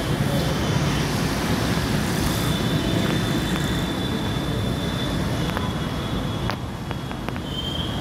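Steady street traffic noise: the continuous low rumble of passing vehicles.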